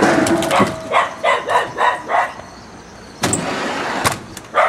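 A dog yapping, about five short barks in quick succession, then about a second of steady rushing noise set off by two sharp knocks.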